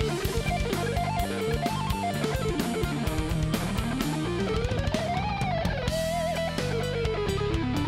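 Background music led by electric guitar, with a melody line sliding up and down over a steady bass and beat.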